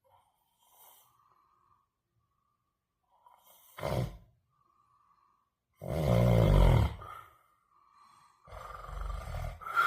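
A man snoring: three snores, the middle one the longest and loudest, with a faint whistling tone on the breaths in between.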